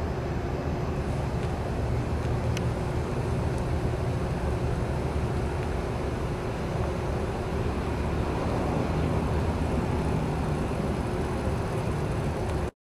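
Steady low rumble of outdoor background noise, with no distinct events, cutting off suddenly near the end.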